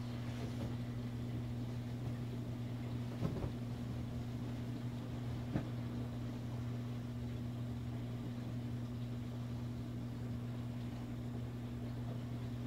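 Steady electric hum of aquarium pumps on a saltwater tank's overflow-and-sump system, over a constant rush of circulating water. Two brief faint taps in the first half.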